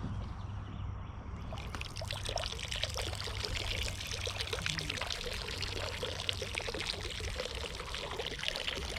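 Water splashing and pouring, dense and continuous, growing fuller about a second and a half in, over a steady low hum.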